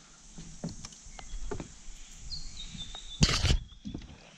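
Scattered light knocks of gear being handled between a canoe and a kayak, with one loud bump a little past three seconds in, and a short falling bird chirp about two seconds in.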